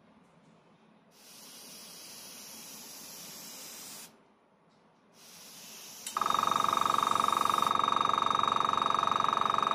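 Compressed air hissing from a marker-pen airbrush in two spurts. About six seconds in, the HSENG AS18TB airbrush compressor's motor cuts in with a loud, steady, pitched buzz to refill its 1-litre air tank.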